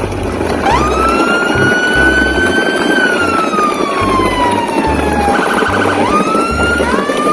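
Siren-like sound effect: one tone that rises quickly, climbs slowly, then slides down for a couple of seconds, breaks into a brief fast warble about five and a half seconds in, and rises again. It plays over background music with a steady low beat.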